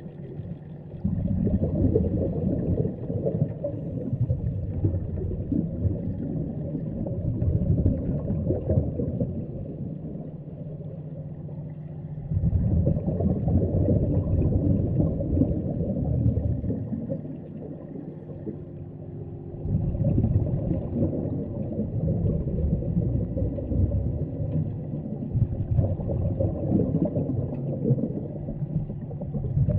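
Underwater breathing of a scuba diver on a regulator. The exhaled bubbles give a low rumbling gurgle in long stretches, broken twice by a short quieter pause for an inhalation. A faint steady hum runs underneath.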